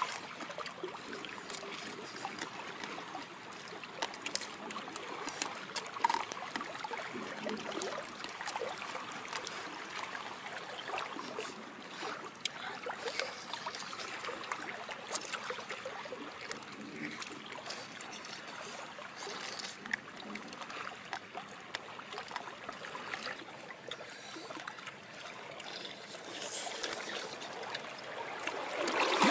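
Water trickling, with scattered small clicks and splashes.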